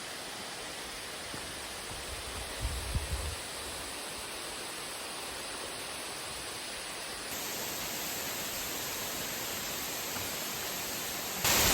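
Steady rush of a waterfall, a continuous even hiss of falling water. It steps louder about seven seconds in and again just before the end, with a brief low rumble about three seconds in.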